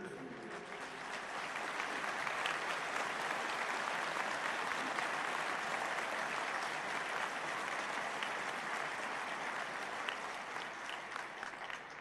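Large crowd applauding, a long steady ovation that starts as the speaker stops and slowly dies away near the end.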